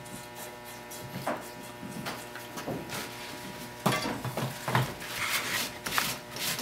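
A handful of light knocks and clinks as a plaster rock casting is handled and set down on a tabletop beside a metal bowl, over a steady background hum.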